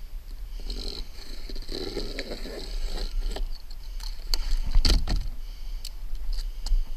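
Rustling and crinkling of Grace Ice & Water Shield roofing membrane and its release liner as they are handled and pressed down onto roof boards. Sharp crackles and clicks come after a few seconds, the loudest about five seconds in, over a steady low rumble.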